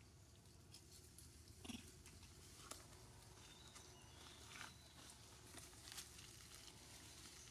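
Near silence: faint outdoor background with a few soft clicks and one short, faint sound about two seconds in.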